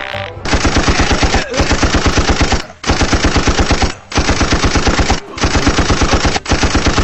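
Rapid machine-gun fire, about ten shots a second, in bursts of about a second each with short breaks between them, dubbed on as a comic sound effect.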